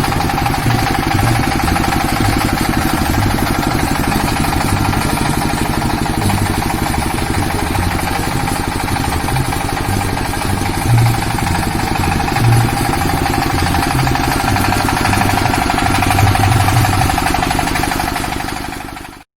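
Engine idling steadily, with a constant mid-pitched whine and uneven low thuds, cutting off abruptly near the end.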